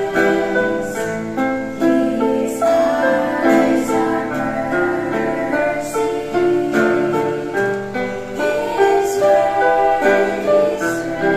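Three young female voices singing a Christian song together, sustaining and moving between notes, over instrumental accompaniment.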